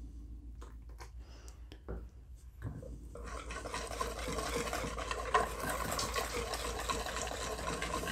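Wire whisk beating pancake batter in a mixing bowl: a rapid, continuous scraping and sloshing that starts about three seconds in, after a few faint clicks.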